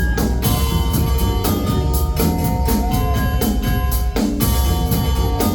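Live band playing an instrumental passage of a rock song: a drum kit keeping a steady beat over a heavy bass line, with held higher tones on top.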